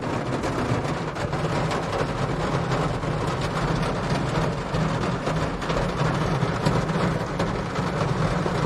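Heavy rain pouring down, a dense, steady patter of drops loud enough to drown out a voice, over a steady low hum.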